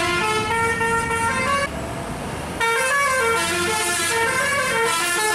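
Bus telolet horn, a multi-tone air horn, playing a stepping tune of several notes in two phrases, with a short break about two seconds in where only rumbling vehicle noise is heard.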